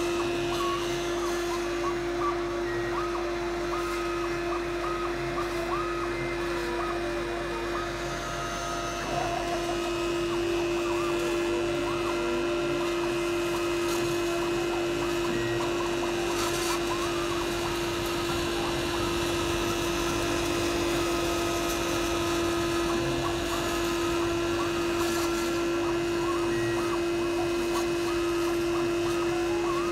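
Home-built CNC router milling foam: the spindle gives a steady whine, while the Nema 23 stepper motors sing in short tones that jump and glide in pitch as the axes change direction.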